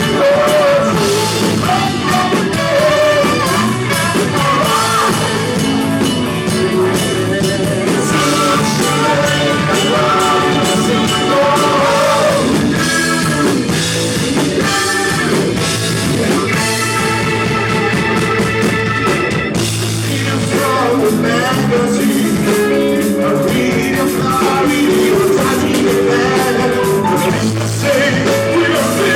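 Rock band playing live: electric guitar, bass and drum kit carrying a long stretch between sung lines, with a lead line bending in pitch over the band.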